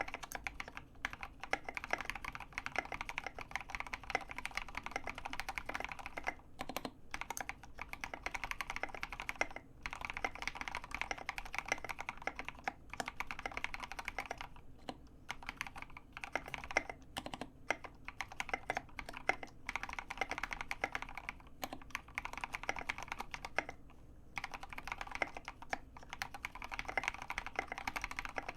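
Continuous fast typing on a custom mechanical keyboard with lubed linear Gateron Yellow switches, 70g springs, an acrylic plate and SA-profile keycaps: a steady stream of rapid keystroke clacks with a few brief pauses.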